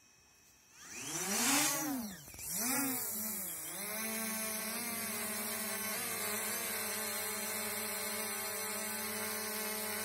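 Quadcopter drone's electric motors spinning up about a second in and lifting off, the whine of the propellers swooping up and down in pitch, then settling into a steady hovering buzz.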